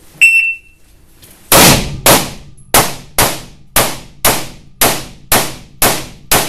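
Shot timer's start beep, then about a second later ten rifle shots from an AR-15-style semi-automatic rifle, about two a second, each ringing off briefly in the indoor range.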